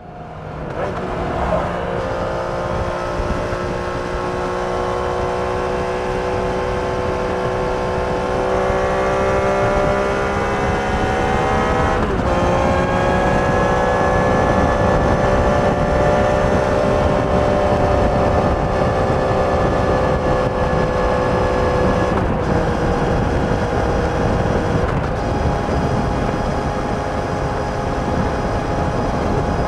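Triumph Trident 660's inline three-cylinder engine through its stock exhaust, heard from the rider's seat at road speed over wind and road noise. The engine note climbs slowly as it pulls in gear, breaks near the middle and again about two-thirds through, then holds steady while cruising.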